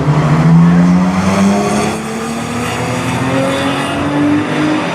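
Nissan Z sports car's engine accelerating, its pitch climbing slowly and steadily through one long pull, loudest in the first second or so.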